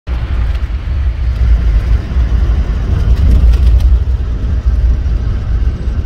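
Steady low rumble and road noise of a vehicle driving on a dirt track, heard from inside the cabin, with a few light rattles about three seconds in.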